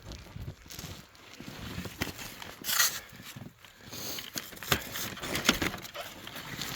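Footsteps with scattered knocks and scuffs, and a brief louder rustle about three seconds in.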